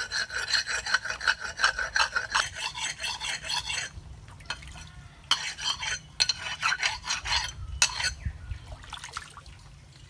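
A cast copper knife blade being ground back and forth on a wet stone: quick rhythmic scraping strokes, about five a second. There are two bouts with a pause of about a second between them, and a last short stroke about eight seconds in.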